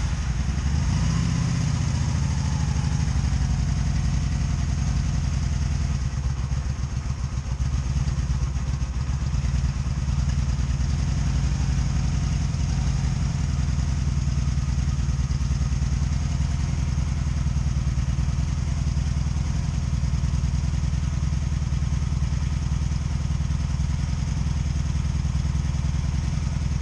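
Honda Magna VF750C's V4 engine running just after starting, settling into a steady idle within the first few seconds. It is not running right: a misfire that the owner is troubleshooting, with one exhaust header still cold.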